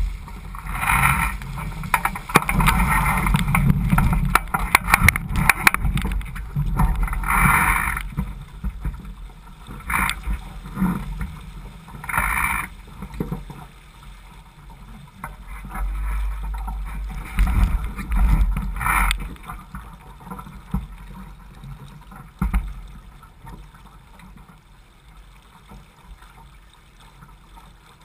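Water rushing and splashing along the hull of a Laser 4000 sailing dinghy under way, with wind buffeting the microphone. It comes in uneven surges, loudest over the first several seconds, and settles quieter in the last third.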